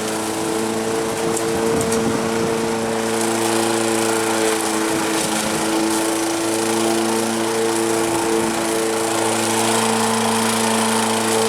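1987 Honda lawnmower engine running at a steady pitch while mowing grass.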